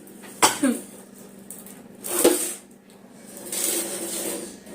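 A woman sneezing, forced sneezes set off by tickling inside her nose with a bare incense stick. There is a short sharp burst of breath about half a second in and a louder one about two seconds in, then a longer breathy rush near the end.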